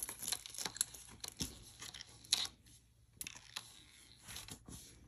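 Hands handling a necklace of painted wood beads and tube beads and laying it out on a mat: scattered light clicks and brief rustles, the loudest about two and a half seconds in.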